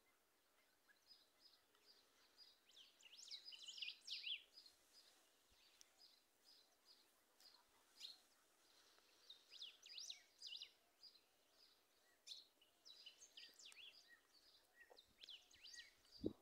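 Small songbirds chirping and calling, a busy run of short high chirps and trills that comes and goes, with a single knock near the end.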